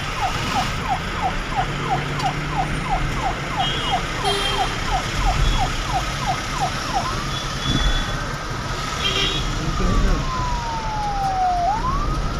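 Police siren in fast yelp mode, quick falling sweeps about three a second. About seven seconds in it switches to a slow wail that rises, holds, slides slowly down and starts rising again near the end.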